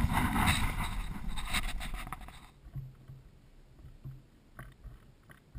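Rushing wind-and-water noise on a sea kayak's camera microphone, cutting off suddenly about two and a half seconds in. After that there are only light knocks and a few soft low thuds on the kayak.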